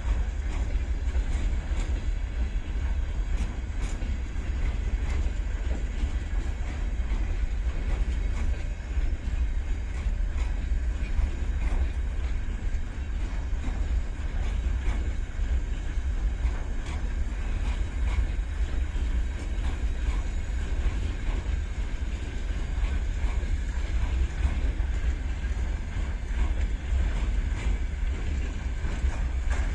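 Freight train hauled by a 3ES5K electric locomotive moving slowly out of a station: a steady rumble of wheels on rails with faint irregular clicks.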